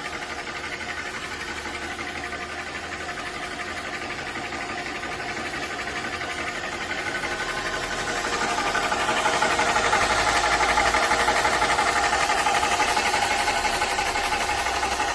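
NUOGE high-pressure PCP air compressor running steadily with a fast, even mechanical pulsing hum. It grows louder about eight seconds in.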